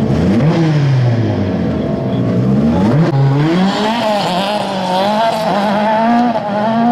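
Rally car engines at full effort on loose gravel: one car's engine note drops as it lifts off, then about three seconds in another car accelerates hard, its revs climbing and then rising and falling through the gears, with its wheels spinning and throwing gravel.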